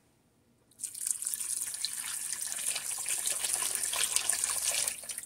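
A stream of water pouring and splashing into a pot of thick roux-based soup base, starting about a second in, running steadily for about four seconds and trailing off near the end.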